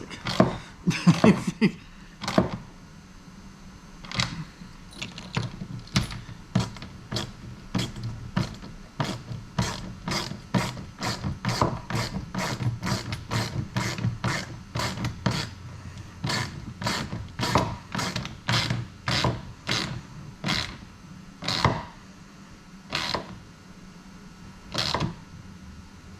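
Hand ratchet clicking in steady runs, about two clicks a second with short pauses, as it tightens the nuts on the bolts holding a mount plate through a plastic kayak hull, brought up snug.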